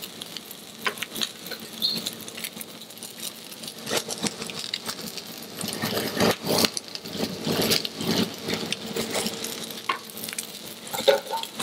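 Food sizzling in hot fat on a griddle and in a saucepan, with irregular clinks and scrapes of metal utensils and pans.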